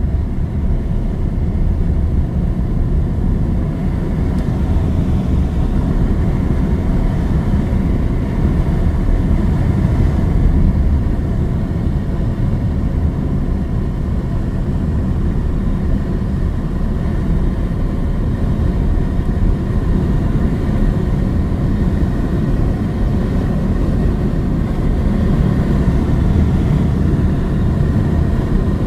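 Steady low rumble of tyre and road noise with wind, heard inside the cabin of an electric car driving on a snowy road.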